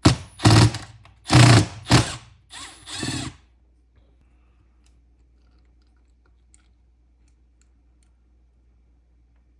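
A power tool run in five short bursts over about three seconds, each burst a noisy whirr, then it stops.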